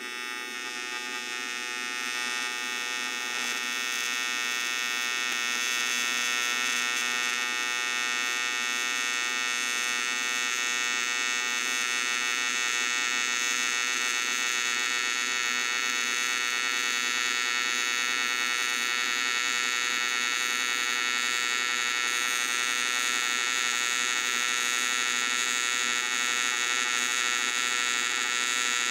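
AC TIG welding arc on aluminum, buzzing steadily with the AC balance set at about 70% electrode negative. It grows slightly louder over the first few seconds, then holds steady.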